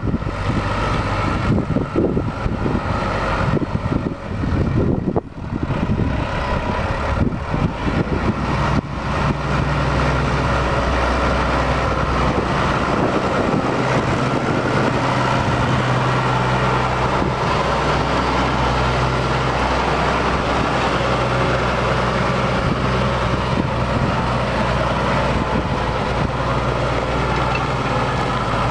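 The diesel engine of a 2004 New Holland TS115A tractor, running steadily up close. For the first several seconds, gusts of wind buffet the microphone; after that the engine is a steady, even drone.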